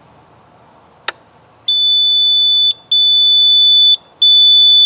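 A Mighty Mule 500 gate opener's control board is switched on with a click, then its beeper gives three long, high, steady beeps of about a second each. This is the board's power-up signal, showing that it works after the lightning-damage repair.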